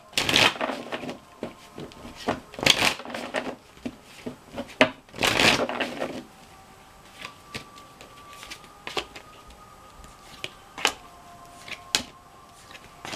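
Tarot cards being shuffled, in three rustling bursts over the first six seconds, then a few sharp clicks as the cards are handled.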